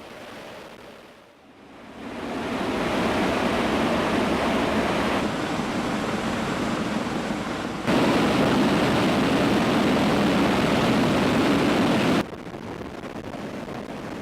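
Steady rushing noise of aircraft in flight: engines and airflow with no clear tone. It rises about two seconds in and jumps abruptly in level several times, as from one shot to the next.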